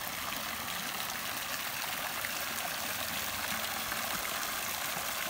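Garden fountain running: thin arching water jets falling into a pool and a round stone basin, a steady splashing hiss of water.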